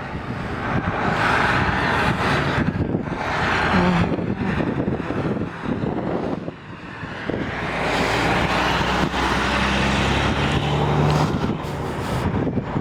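Road traffic passing close by: a vehicle swells past about a second in, and a heavier one goes by from about eight seconds with a low engine hum. Wind buffets the microphone.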